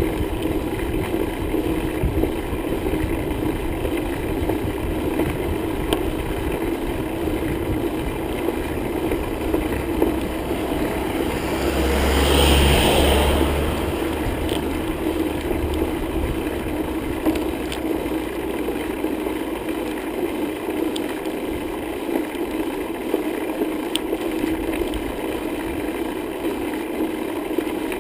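Steady riding noise from a bicycle on the road: tyre rumble and air rushing past the microphone, with one louder swell of deep rumble and hiss about twelve seconds in.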